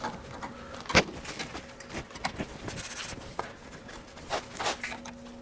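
Hand tools scraping and clicking against a rusty metal transmission cooler line as a stuck rubber hose is pried loose, with a sharp click about a second in and a brief hiss near three seconds.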